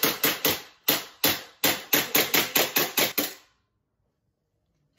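Elite Force Glock 17 Gen 4 green gas blowback airsoft pistol fired in quick semi-auto succession, about three to four sharp shots a second with the slide cycling each time. The string stops suddenly about three and a half seconds in, the last shots fired empty after the BBs ran out.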